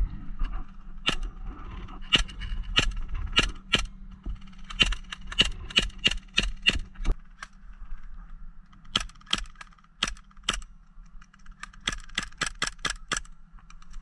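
Airsoft guns firing repeated sharp snapping shots in several quick strings of about three to five shots a second, with short pauses between the strings.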